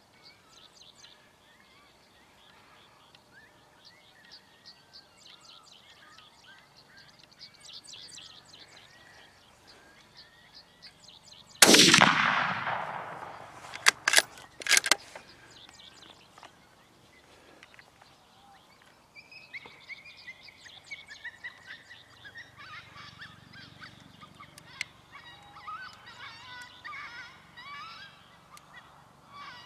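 A single loud gunshot about midway, echoing off across the field as it dies away, followed within three seconds by two sharper, shorter cracks. Before it there are faint bird chirps, and after it a busy run of high calls.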